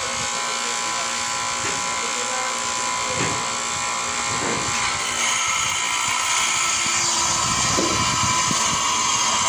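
Bench grinder running while a lathe tool bit is held against the spinning wheel and ground. The grinding grows louder about halfway through.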